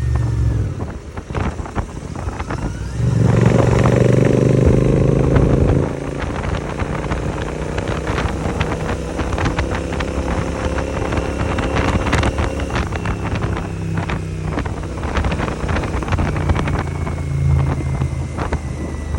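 650 parallel-twin motorcycle with an AEW 101 aftermarket exhaust, under way. The exhaust note drops off about a second in, then comes back much louder for about three seconds as the engine accelerates with rising pitch, cuts back sharply, and settles into steadier running with a slowly rising pitch, with wind noise over the microphone.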